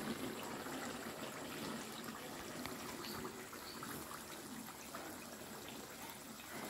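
Thick, dark kalu dodol mixture cooking in a large wok, a wet bubbling and sloshing with scattered small pops as it is worked with a wooden paddle.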